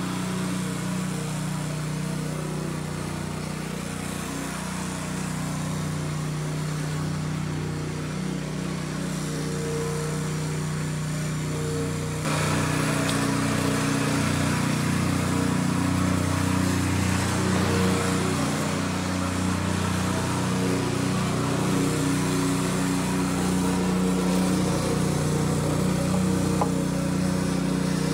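Small petrol engine of a plate compactor running steadily at a constant speed; the sound gets louder about 12 seconds in.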